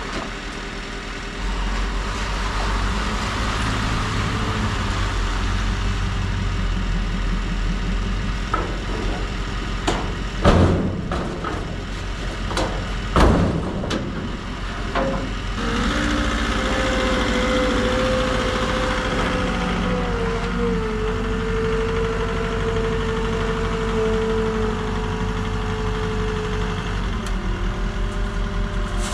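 Ford Super Duty pickup truck engine running steadily while driving, with a few sharp knocks around a third of the way in and a steady whine that sets in about halfway.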